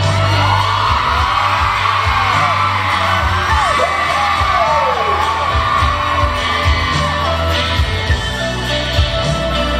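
Live pop music over a backing track with a steady bass line, a male singer on a handheld microphone, and high voices screaming and whooping over it in the first half.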